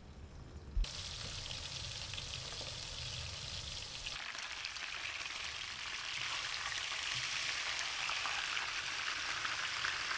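Food frying in hot oil in a pan, a dense sizzle that starts abruptly with a knock about a second in. The sizzle grows louder and brighter about four seconds in.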